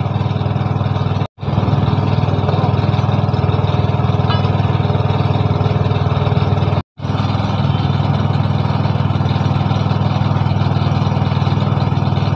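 Small engine running steadily at a constant speed. The sound cuts out abruptly twice, for a moment each time, then resumes.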